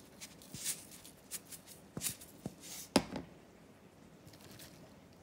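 Salt being sprinkled over deep-fried eggplant in a glass dish: scattered light ticks and taps, with one sharper click about three seconds in, then quiet background.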